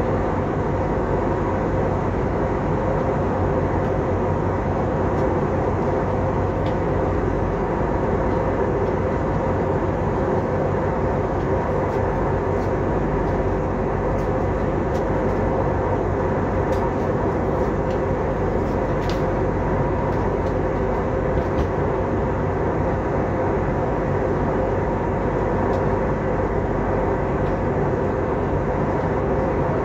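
Steady cabin noise of an Airbus A320-family jet airliner in flight: an even roar of engines and rushing air, with a steady hum running through it.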